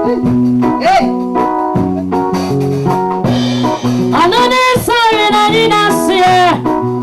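Worship song played by a band, with a singer's voice coming in strongly about three seconds in.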